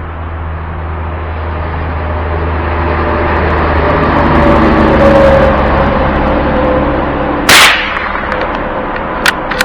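A motor vehicle passes by, growing louder to about halfway, then fading as its pitch drops. About three-quarters of the way in comes a single sharp crack, a shot from a Savage .22 rifle, followed by a few small clicks.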